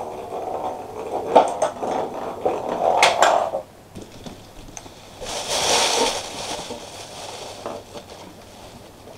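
Plastic marble-run toy pieces knocking and a ball rolling and rattling as a cat paws at the toy, with several sharp clicks, for about three and a half seconds. About five seconds in there is a brief scraping rustle.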